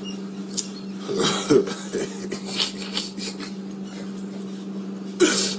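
A steady low electrical-sounding hum with a few light clicks and knocks, a soft mumble about a second in and a short voice sound near the end.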